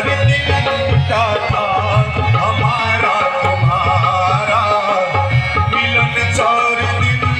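Live bhajan music: tabla keeping a steady, even beat under a wavering, ornamented melody line, likely sung.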